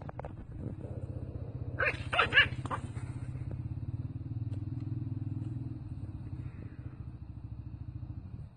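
A small dog barking sharply in a quick burst about two seconds in, over a steady low rumbling growl.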